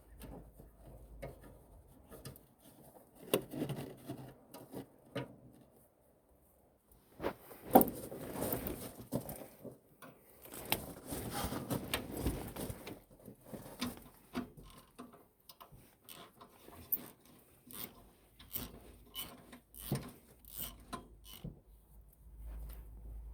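Irregular handling noises: scattered clicks and light knocks with spells of rubbing and scraping, busiest about a third and a half of the way in.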